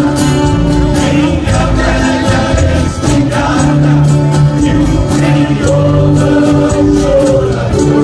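Música caipira ensemble performing live: several men singing together over violas caipiras and acoustic guitars, with a steady plucked-string rhythm under the held vocal notes.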